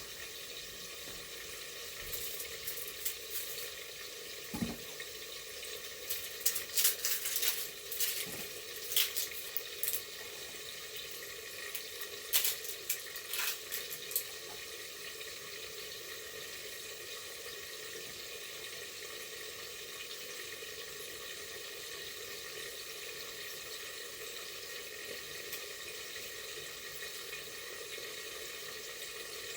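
Food frying in a pot with a steady sizzle. A run of sharp knocks and clatters comes between about two and fourteen seconds in, then only the sizzle continues.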